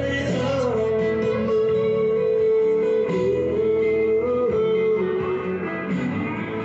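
Background music: a song with prominent guitar, long held notes that bend in pitch.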